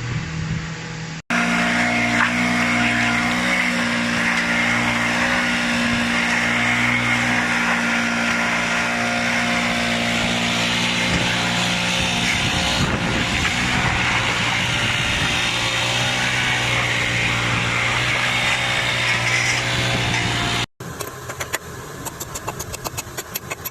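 A motor or machine running steadily, a loud drone with several held low tones, then cut off suddenly near the end and followed by a quieter stretch of rapid clicking.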